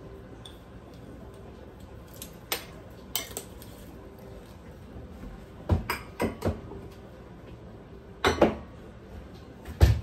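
Kitchen utensils and dishes clinking and knocking as dry biscuit ingredients are measured into a bowl. Scattered sharp clinks, a few on their own at first, then in small clusters about six and eight seconds in and once near the end.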